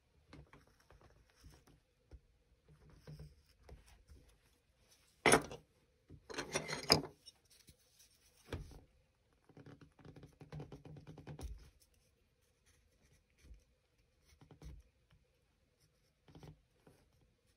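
Hand-carving basswood with a small carving gouge: quiet scraping cuts and small ticks, the louder strokes coming in runs. A sharp knock comes about five seconds in, and a second of louder clattering follows just after, as a tool is handled.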